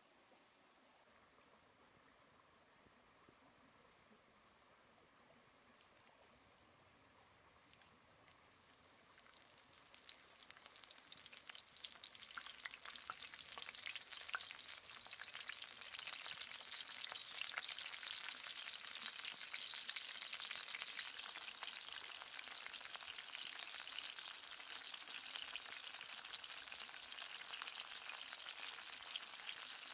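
Cauliflower florets frying in hot oil in a clay pan: a crackling sizzle that starts about a third of the way in and grows louder as more florets go into the oil, then holds steady.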